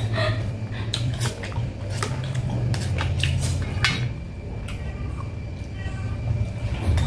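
Metal spoon clinking and scraping against a stainless steel bowl while picking at a crab, a quick string of sharp clicks through the first four seconds, sparser after that. A steady low hum runs underneath.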